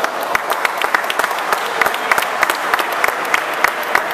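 A small crowd applauding, with individual hand claps standing out sharply several times a second.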